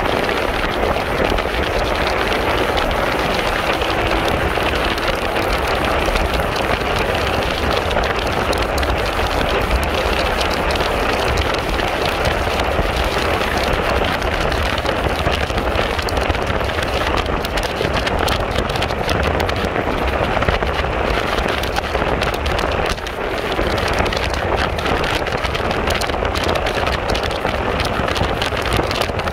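Wind buffeting the microphone over road noise from a motorbike riding at speed on smooth asphalt, a steady rushing that dips briefly about three-quarters of the way through.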